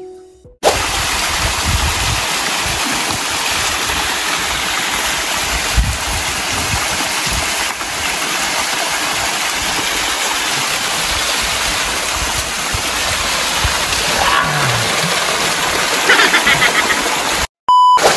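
Waterfall: a steady rush of falling water that starts suddenly just after a few fading notes of music, with a brief dropout near the end.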